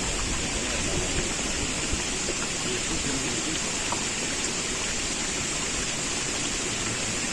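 Steady hissing, rushing water noise with a few faint ticks.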